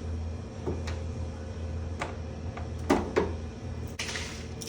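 A few light knocks and clicks from handling parts of a front-load washing machine during repair, over a steady low hum.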